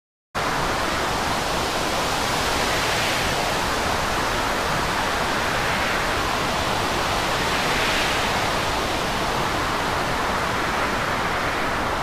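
Storm wind and rough sea: a steady rush of noise that swells every few seconds as waves break, starting suddenly a moment in.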